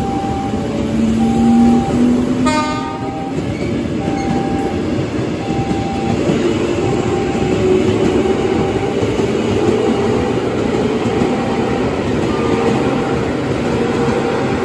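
Electric commuter train running along the rails beside the platform, with a steady rumble and a motor whine that rises in pitch. A short horn blast sounds about two and a half seconds in, and a short tone repeats about once a second throughout.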